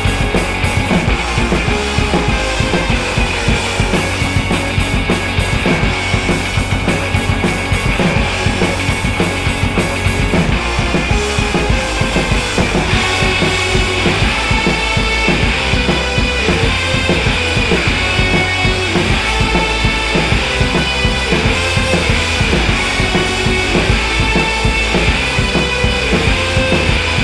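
Rock music with a steady drum beat, played as a backing track.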